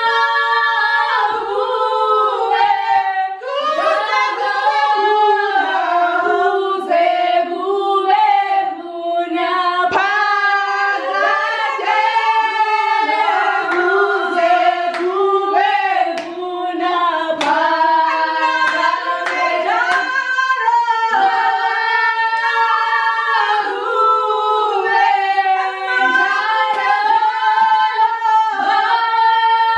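A small group of women singing together unaccompanied, several voices in harmony, with occasional hand claps.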